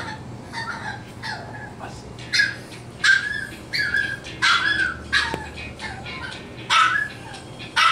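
Morkie puppies whimpering and yipping: a string of short, high-pitched cries at irregular intervals, about one or two a second.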